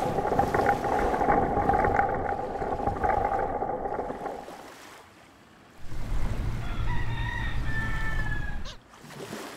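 A dense, loud noise with a steady hum in it for about the first four seconds, fading out. After a short lull, a rooster crows over a low wind rumble.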